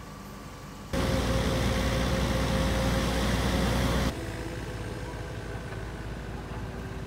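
Diesel engine of a compact wheel loader running close by, a loud steady rumble with a constant whine. It comes in abruptly about a second in and cuts off about four seconds in, giving way to a quieter, more distant engine hum.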